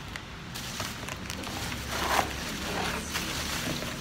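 Plastic bubble wrap rustling and crinkling as a ring light is pulled out of it, with a louder crackle about two seconds in.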